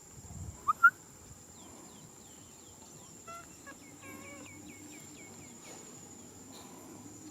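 A baby macaque gives two short, loud, rising squeaks about a second in. Behind it are repeated small bird chirps and a steady high-pitched whine.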